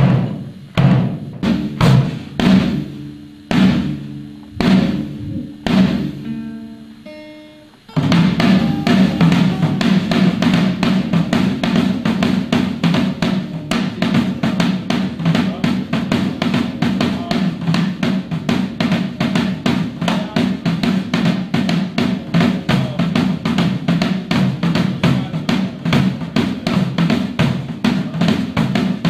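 A drum kit: single ringing drum strokes a little under one a second, then about eight seconds in, fast, busy drumming starts abruptly and carries on.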